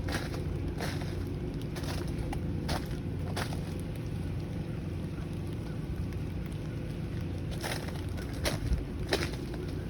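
Irregular crunching and snapping of ice and frozen snow, a few sharp cracks clustered in the first three and a half seconds and again near the end, over a steady low rumble.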